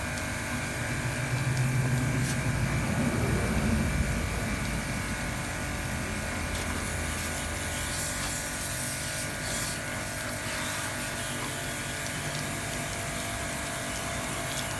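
Electric pressure washer's motor-driven pump running steadily with the hiss of its water spray, swelling louder for a few seconds about a second in.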